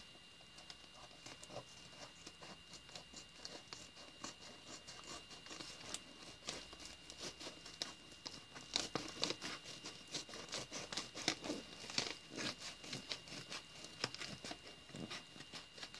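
Scissors cutting open a yellow padded mailer: faint crinkling of the bag and small clicks and snips of the blades, sparse at first and busier from about halfway through.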